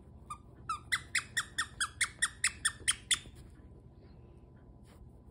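Squeaker inside a plush dog toy squeaking about a dozen times in quick succession, roughly five a second, as a puppy chews it. The squeaks stop about three seconds in.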